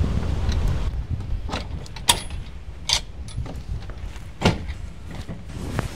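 Wind buffeting the microphone for about the first second. Then a handful of sharp, separate clicks and knocks, about five, irregularly spaced, like things being handled.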